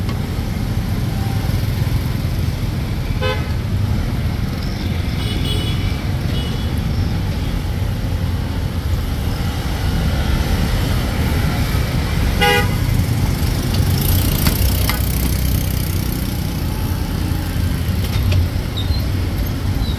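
Steady rumble of street traffic with a vehicle horn giving two short toots, one a few seconds in and one about halfway through.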